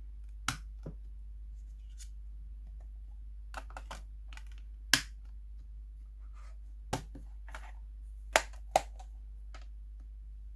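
Blu-ray discs being snapped back onto the hubs of a metal steelbook case and the case handled: a series of sharp plastic clicks and taps, the loudest about five seconds in and a quick pair of clicks past the eight-second mark.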